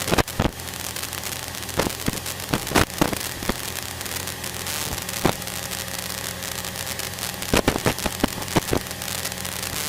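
Steady drone of a light single-engine Cessna's 100-horsepower engine heard through the headset intercom, with many irregular sharp crackles and pops over it.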